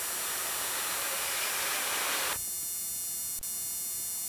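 Steady hiss of background noise that cuts off abruptly about two and a half seconds in, where the recording cuts, leaving a fainter hiss with faint steady high-pitched tones.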